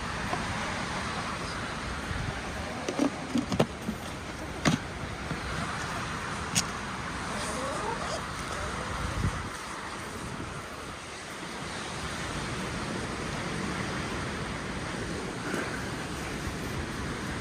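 Strong wind rushing and buffeting the microphone, with low gusty rumble. A handful of sharp clicks or taps come in the first seven seconds.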